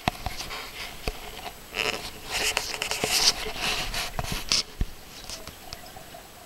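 Camera handling noise: rustling and scraping close to the microphone, loudest between about two and four and a half seconds in, with a few sharp knocks.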